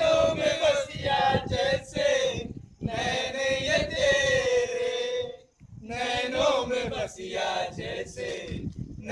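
A group of young men singing together in long, drawn-out sung phrases, with brief breaks between phrases, the longest a little past halfway.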